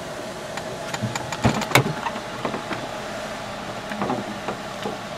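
Steady hum inside a running car's cabin, with a couple of sharp clicks and knocks about a second and a half in and a few fainter ones later.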